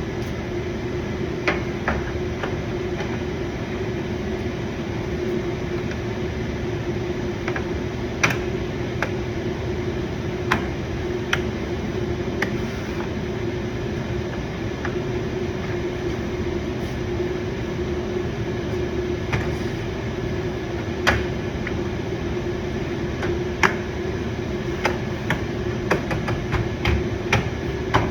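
Scattered sharp clicks and knocks of a car's plastic bumper cover and trim being fitted and pressed into place, coming more often near the end, over a steady droning hum.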